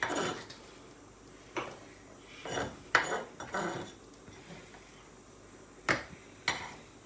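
Kitchen clatter: utensils and dishes knocking against a chopping board and worktop, about seven separate short knocks with quiet between them.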